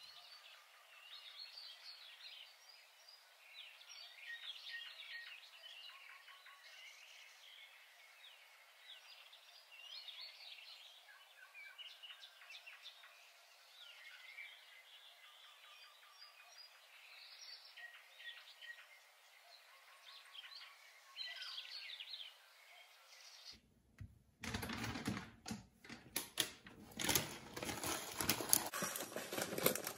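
Small birds chirping and twittering outdoors, many short high calls overlapping. About 23 seconds in this gives way to louder clicks and plastic rustling as a packet of poha is handled over a glass bowl.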